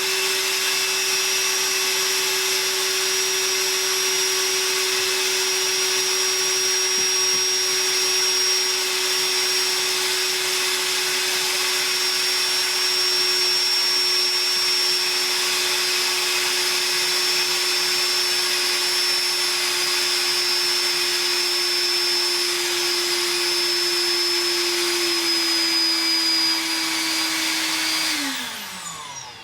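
Ridgid NXT cordless wet/dry vacuum running steadily on battery power, its motor pitch sagging slightly, then winding down and stopping about 28 seconds in as the battery runs out.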